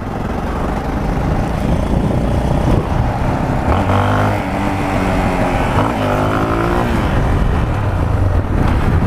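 Yamaha 250 cc trail motorcycle's single-cylinder engine running hard at speed, with wind rush. The engine note climbs about four seconds in and again about six seconds in as the rider throttles up into a wheelie.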